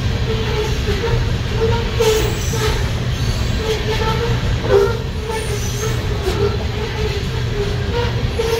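Freight train's open-top hopper cars rolling past: a steady rumble of steel wheels on rail, with a wavering wheel squeal that comes and goes and a few clanks, the sharpest about two thirds of the way through.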